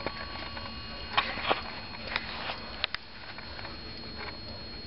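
Warmink Zaanse eight-day wall clock ticking: a few light, unevenly spaced clicks over a faint steady high tone.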